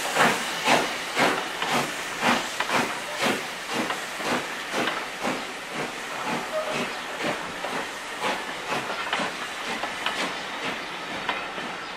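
Southern Railway S15-class steam locomotive No. 825 pulling away with its train: regular exhaust beats that come quicker and fade as it draws off, with steam hissing, while the coaches roll past.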